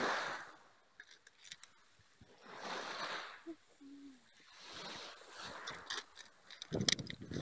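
Sea waves washing onto a pebble beach, swelling and fading about every two seconds, with a loud rustle near the end.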